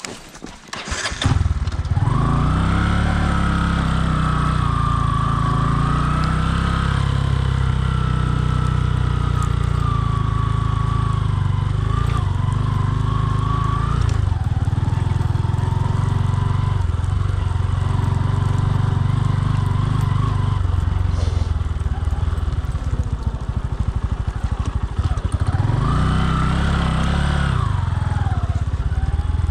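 Bajaj Boxer 150's single-cylinder four-stroke engine comes in suddenly about a second in and keeps running. Its pitch rises and falls with the throttle, with a rev up and back down near the end.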